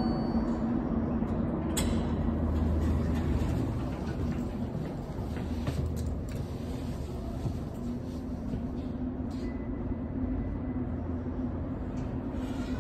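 Passenger elevator in motion: a steady hum with a low rumble, heavier in the first few seconds, and a few sharp clicks.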